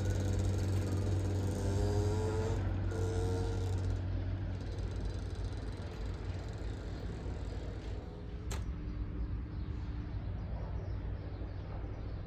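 Class 189 (Siemens ES64F4) electric locomotive moving slowly with a freight train, with a steady low hum throughout. Over the first four seconds a set of tones rises in steps and then fades. A single sharp click comes about eight and a half seconds in.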